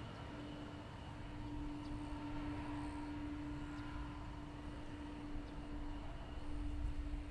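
Regional airliner's engines running steadily at a distance: a constant droning tone with fainter higher tones over a low rumble that swells toward the end.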